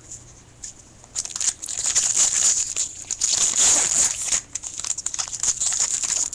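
Foil wrapper of a baseball card pack being torn open and crinkled by hand, a dense crackle that starts about a second in.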